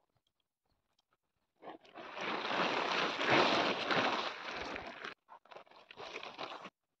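Nylon tent fabric rustling as a collapsed dome tent is lifted, shaken out and spread flat on the ground: one loud spell of about three seconds, then a few shorter rustles as it is pressed down.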